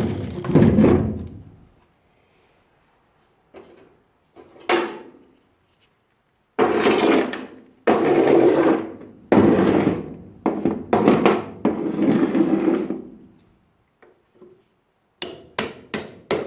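A hand-held power tool run in about six short bursts, each a second or so long, working on the rusted bolts that hold the truck bed to the frame. A few sharp clicks come near the end.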